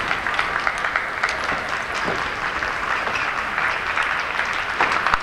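Hall-wide clapping and crowd noise, dotted with the sharp clicks of table-tennis balls being hit and bouncing.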